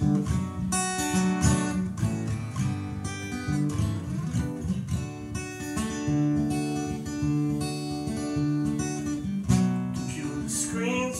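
Acoustic guitar strummed in an instrumental break, chords ringing and changing every second or so. A singing voice comes in near the end.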